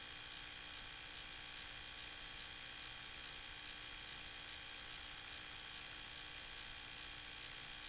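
Steady electronic hiss and buzz with several faint high whining tones, unchanging throughout: recording noise, with no sound from the scene.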